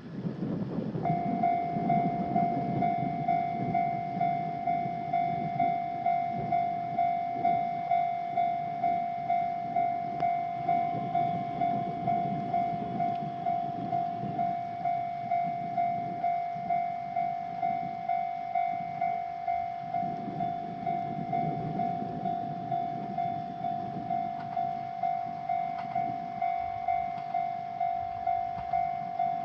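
Electronic warning alarm of a Japanese railway level crossing starting to sound about a second in: one steady tone pulsing evenly, signalling that a train is approaching. A low, uneven rumble runs beneath it.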